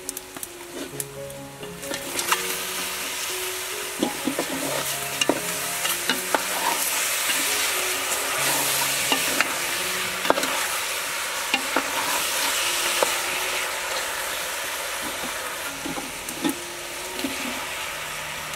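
Spice paste and fish pieces sizzling in a hot aluminium pot while being stirred with a wooden spatula, which knocks against the pot now and then. The sizzling swells about two seconds in.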